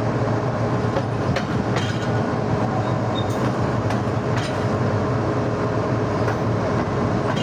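GEU-40 diesel-electric locomotive running as it rolls slowly along station tracks, heard from beside its cab. Its engine hums steadily, and its wheels give scattered sharp clicks over rail joints.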